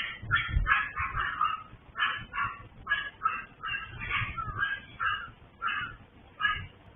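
Several small dogs in a breeder's kennel barking in short, irregular yaps, about two a second, some overlapping: nuisance barking.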